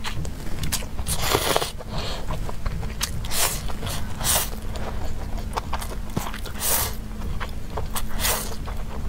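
A person slurping noodles close to a clip-on mic, with about five long noisy slurps. Between the slurps come chewing and small wet mouth clicks.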